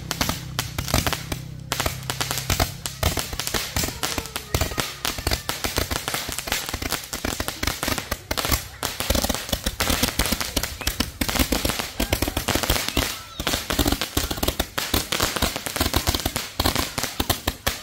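Rapid-fire multi-shot firework cake (a 'machine gun' type mercun) firing a continuous string of sharp shots and pops, many a second with no break.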